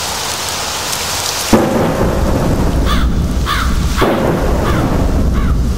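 Steady rain with thunder: a sudden crack about one and a half seconds in and another rumble about four seconds in. Crows caw several times in the second half.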